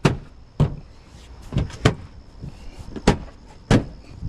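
About six sharp plastic snaps and knocks, spaced unevenly, as a removed cover or trim piece on an SUV liftgate is pushed and tapped back into place.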